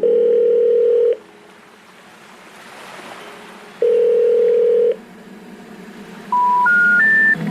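Telephone line tones: two long steady beeps of the same pitch a few seconds apart, then near the end three short tones stepping up in pitch, the special information tone that comes before a recorded network message such as 'number not in service'.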